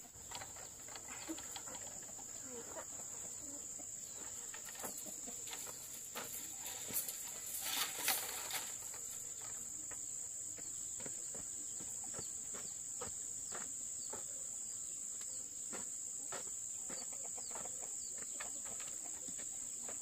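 Steady high-pitched drone of insects in the background, with scattered light clicks and knocks and a louder rustling burst about eight seconds in.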